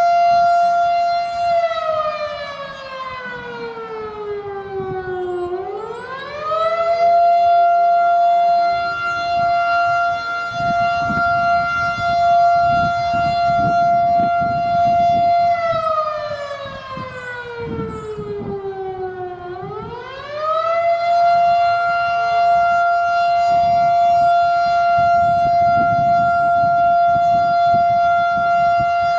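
Federal Signal Model 7 storm siren sounding its attack signal. It holds a steady high tone, slides down over about four seconds, then swings quickly back up and holds again, twice.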